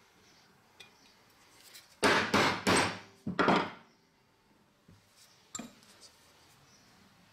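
Hammer striking a small punch held on an old filleting knife's wooden handle: about five quick, loud blows in under two seconds, each ringing briefly, then a few faint knocks as the knife is handled.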